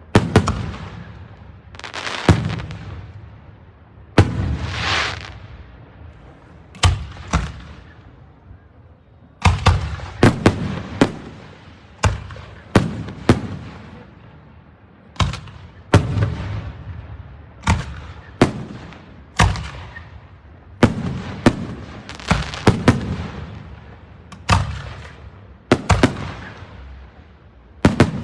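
Aerial fireworks shells bursting one after another: sharp bangs, each trailing off in a rumbling echo, roughly one every one to two seconds and sometimes two in quick succession, with one longer rushing burst about four seconds in.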